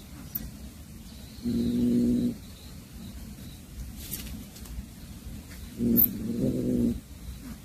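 Domestic cat giving two low, drawn-out growls over a caught mouse, one about a second and a half in and a longer one near the end.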